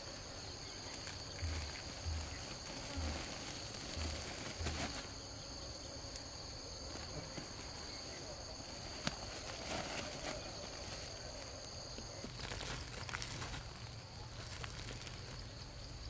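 Insects buzzing in a steady high drone that stops about three-quarters of the way through. There are five soft low thuds in the first few seconds and a few scattered clicks.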